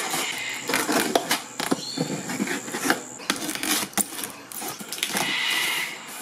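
Cardboard mower box being cut open and unpacked: a blade scraping along packing tape, then the flaps creaking and rustling as they are pulled apart, in a run of irregular clicks and scrapes. A steady high insect drone stops about three seconds in. From about five seconds in, cockatoos screech.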